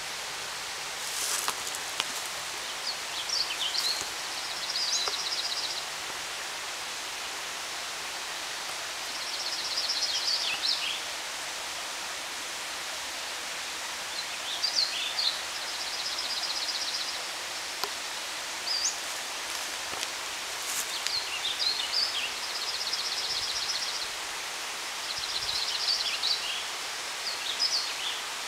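A songbird singing the same short song over and over, a few quick high notes ending in a rapid trill, about every five or six seconds, over a steady outdoor hiss.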